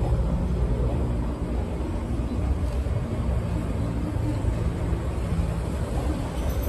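DE-class diesel-hydraulic locomotive's engine running with a steady low rumble while the train of coaches rolls past along the track.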